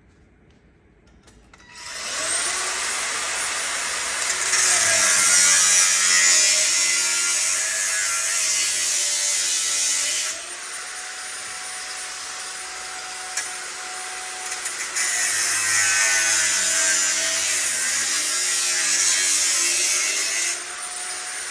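An electric power tool spins up about two seconds in and runs with a steady high whine. It works much louder in two long stretches as it cuts into the workpiece, and runs lighter in between.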